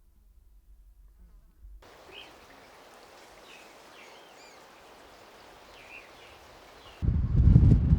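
Soft, even outdoor ambience with a few short, high chirps scattered through it; about seven seconds in, loud wind buffeting the microphone suddenly cuts in.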